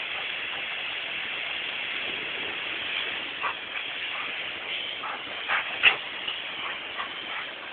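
A Labrador retriever gives a few short yips and barks, the loudest about six seconds in, over the steady hiss of a garden hose spraying water.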